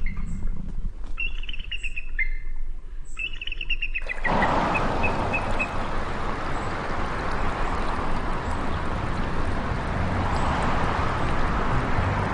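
Bird calling in short runs of quick, high piping notes. About four seconds in, this gives way abruptly to the steady rush of a shallow river running over rocks, with a few faint chirps just after the change.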